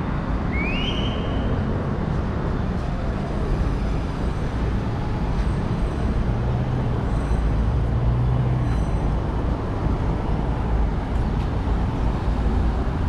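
Steady city street traffic noise: a continuous rumble of cars, with one engine's hum rising out of it around the middle and a short rising chirp about half a second in.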